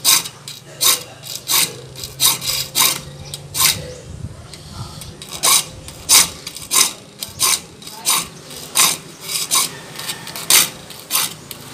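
Hand file rasping across the teeth of a handsaw clamped in a metal bench vise, sharpening the dull teeth. Short strokes come about two a second, with a brief pause about four seconds in.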